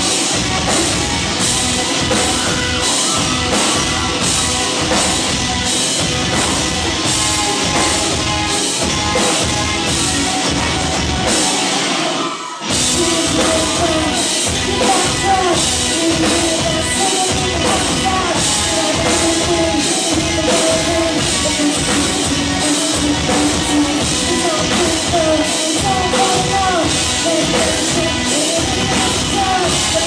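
A live rock band playing loud: distorted electric guitars and a drum kit keeping a steady heavy beat, with a woman singing. About twelve seconds in, the low end cuts out for a brief break before the full band comes back in.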